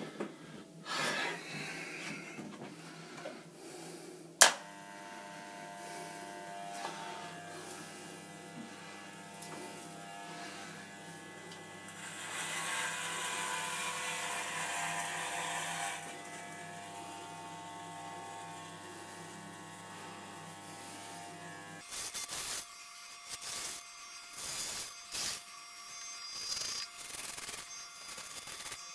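Corded electric hair clippers running with a steady buzz while trimming a full beard. There is a sharp click about four seconds in, the cutting is louder for a few seconds midway, and near the end the sound comes in short choppy bursts.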